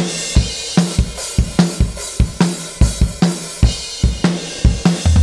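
Drum kit playing a steady beat of kick, snare and cymbals, running as test audio through the Smart:Comp 2 compressor.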